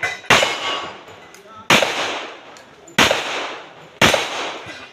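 Handgun shots: four inside, spaced a little over a second apart, each sharp crack trailing off in a long echo.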